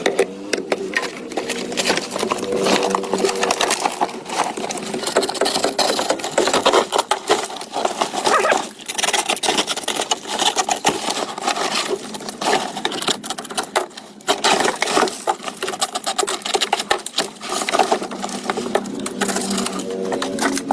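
A small machine running in rapid, continuous clattering runs, breaking off briefly about 9 seconds in and again about 14 seconds in.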